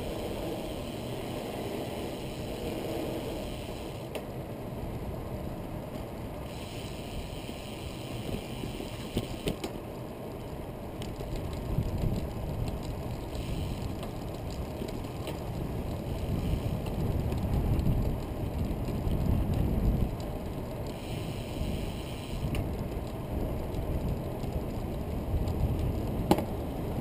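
Catrike recumbent trike rolling along asphalt: a steady low road and tyre rumble with wind buffeting the microphone in gusts, and a few light clicks.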